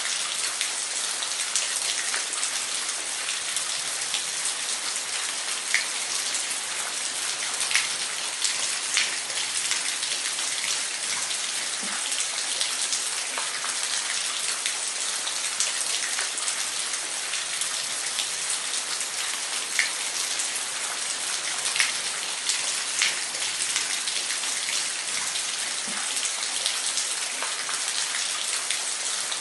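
Waterfall: a steady rush of falling water with scattered splashes and drips.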